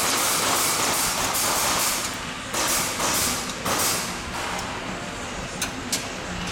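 Loud rubbing and scraping noise from the phone being handled with its microphone pressed against something. It comes in patches and stops suddenly a little over halfway through. Near the end come two light metallic clicks as a hex key meets a bolt on the steel bracket.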